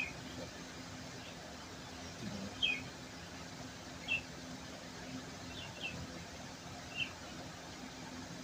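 A small bird chirping: short single chirps that fall in pitch, every second or two, over a steady low hum.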